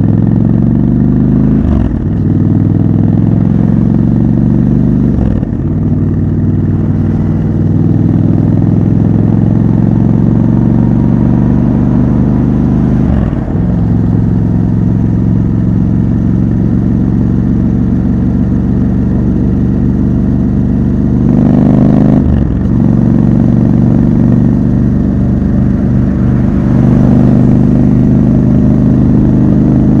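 Triumph Scrambler 1200 XC's 1200 cc parallel-twin engine running under way through traffic. Its steady note breaks briefly about four times, as gears change.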